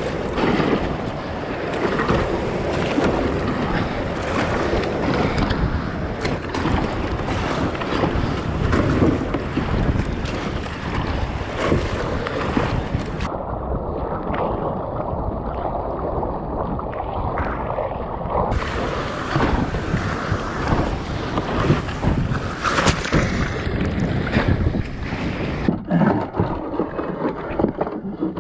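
Wind buffeting the microphone over the rush of choppy sea, with water splashing from paddle strokes and against the hull of a fishing kayak being paddled out into the wind.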